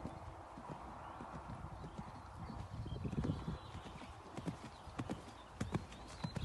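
Hoofbeats of a horse cantering on a sand arena surface: a run of dull thuds, growing louder about halfway through.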